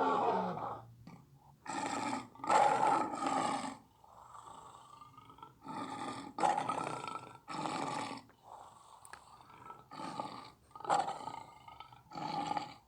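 Tyrannosaurus rex roar sound effects: a quick string of about a dozen short roars, each lasting under a second, with brief pauses between them.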